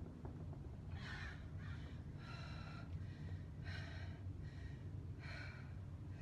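A woman breathing hard from exertion, with about five forceful, noisy breaths a second or so apart, over a steady low background rumble.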